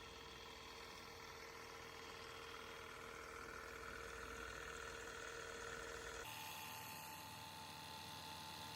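Faint steady machine hum, a low drone with a few steady tones, which changes abruptly about six seconds in to a thinner hum with a higher steady tone.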